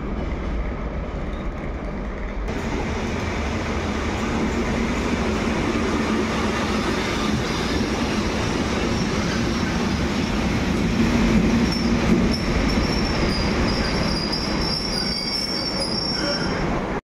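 Polregio regional passenger train running past close by, a steady rumble of wheels on rail. About twelve seconds in, a high metallic squeal joins in.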